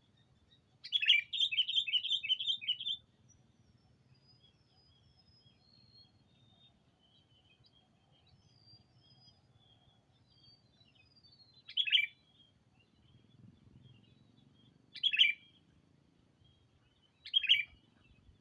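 Sooty-headed bulbul (kutilang) decoy calling to draw rivals: a rapid chattering phrase of about eight notes about a second in, then three single sharp calls near the end. Fainter bird notes twitter in between.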